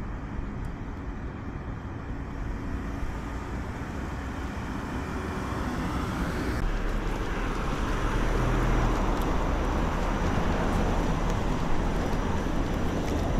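Steady low rumble of outdoor traffic-like noise, growing louder about halfway through.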